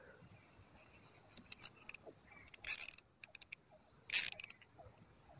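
Small spinning fishing reel being handled and cranked, giving short metallic rattles and clicks, as line is reeled in after a bite. Insects keep up a steady high chirring behind it.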